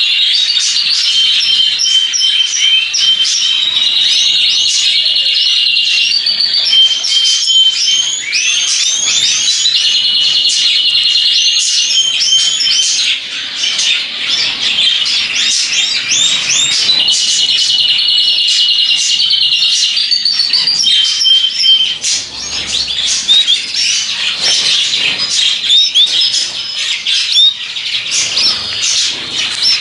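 A flock of small cage birds chirping and calling over one another without pause. Bursts of fast, even trilling, each lasting about two seconds, recur every few seconds.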